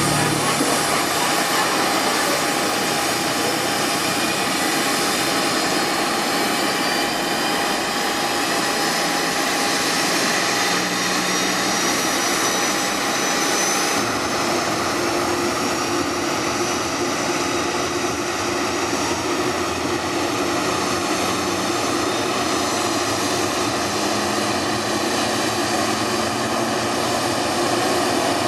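Boeing 737-800's CFM56-7B turbofan during engine start: a loud, steady jet whine with high tones slowly rising as it spools up. About halfway through, one steady tone drops out and the mix of tones shifts.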